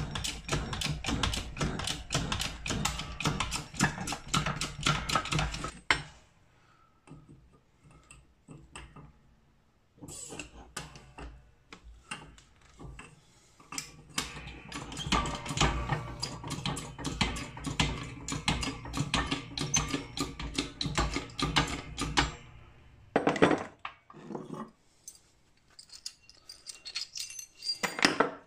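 Keyway broach being forced through the bore of a 49-tooth gear in a shop press, on the second pass with a spacer behind the broach: rapid metallic clicking as its teeth cut, in two long runs with a pause between them, then a few separate knocks near the end.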